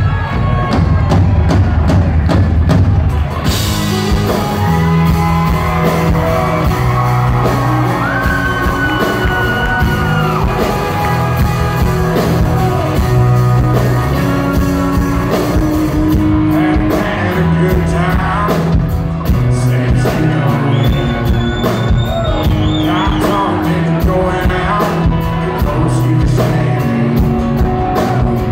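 A live country band playing: acoustic guitar strummed over drums and bass, with a melody line on top, heard loud and roomy in a large hall.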